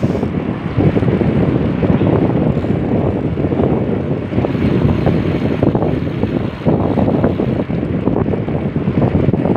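Wind buffeting the microphone of a camera mounted on a moving bicycle's handlebars: a loud, dense low rumble that flutters without letup.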